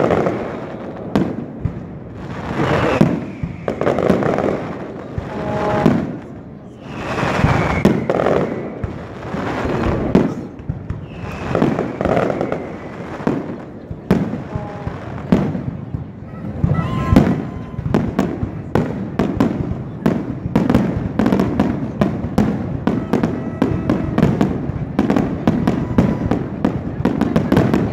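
Aerial firework shells bursting overhead every couple of seconds, each with a long echoing boom. From about halfway a dense, rapid crackling of many small reports sets in.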